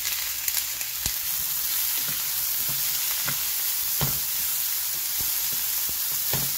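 Chopped onion and garlic sizzling in olive oil in a frying pan, with a steady hiss, while being stirred; the stirring spoon knocks against the pan about seven times.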